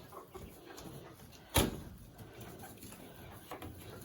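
A single sharp knock or bang about a second and a half in, over faint rustling.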